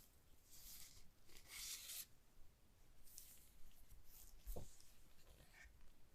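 Keyboard packaging being handled during an unboxing: a few soft rubbing, sliding swishes of cardboard or plastic, with one light knock about four and a half seconds in.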